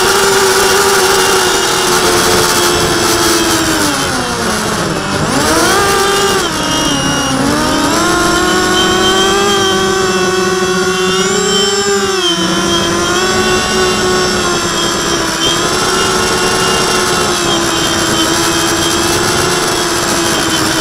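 FPV quadcopter's electric motors and propellers whining at speed, the pitch dropping and climbing again twice a few seconds in and once more near the middle as the throttle is eased and opened.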